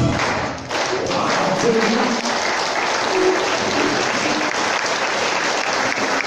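An audience applauding steadily. The last notes of a song break off right at the start.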